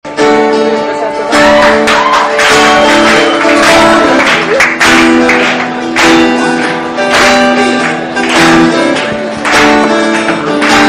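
Solo acoustic guitar played live, strummed chords ringing with a sharp accented strum about once a second.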